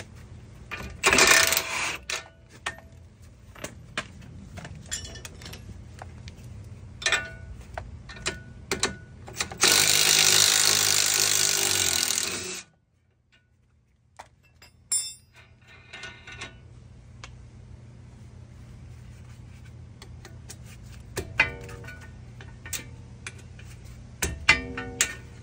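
Cordless impact wrench hammering on the strut mounting bolts at the front wheel knuckle. The longest run lasts about two and a half seconds near the middle, with a shorter burst early on and more short bursts and metallic clicks of sockets and bolts toward the end.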